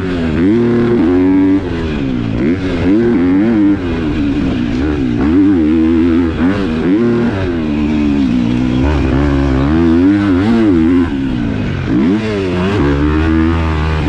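KTM 250 SX-F four-stroke single-cylinder motocross bike with a Yoshimura exhaust, revving hard and rising and falling in pitch again and again as it accelerates, shifts and rolls off around a track, with brief dips about a second and a half in, near four seconds, and near the end.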